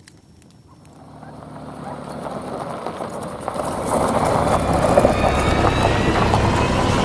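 A car driving up and past, its engine and tyre noise building steadily louder over the first few seconds and then holding loud. Faint campfire crackle is heard just before the car noise rises.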